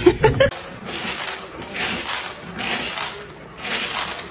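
A few sharp knocks at the very start, then a dog eating dry kibble from a plastic bowl: hard pellets rattling and crunching in repeated short bursts about once a second.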